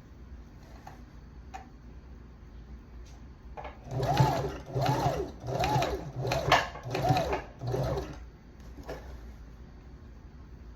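Janome sewing machine stitching a hair weft, run in six short spurts starting about four seconds in. The motor's whir rises and falls in pitch with each spurt.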